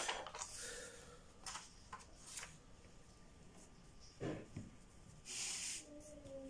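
Paper sheets being turned over and handled on a desk: a rustle as a page is flipped, a few short crisp rustles, a soft thump a little past four seconds, and a longer rustle of paper sliding about five seconds in.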